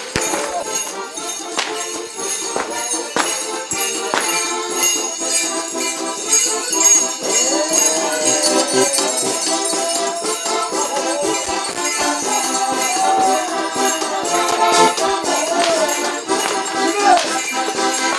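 Music mixed with the steady jingling and rattling of bells on the costumes of New Year mummers, with pitches gliding up and down over it throughout.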